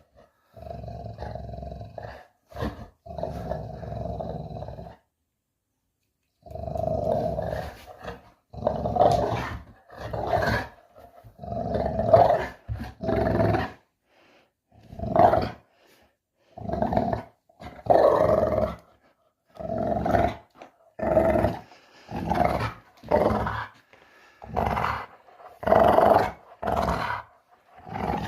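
Puppy growling in play: a long run of separate growls and grumbling calls, each about a second long, with short gaps between them and a pause about five seconds in.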